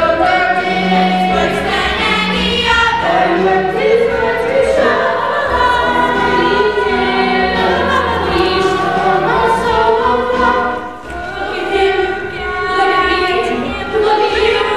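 A school musical cast singing a show tune together as a chorus, several voices at once, over a musical accompaniment.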